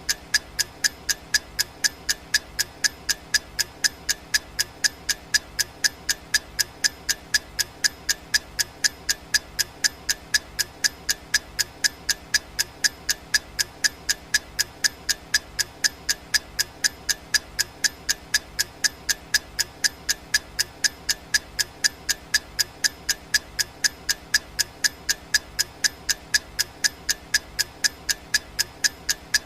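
Countdown timer's clock-style ticking sound effect: crisp, evenly spaced ticks, several a second, keeping a perfectly regular beat.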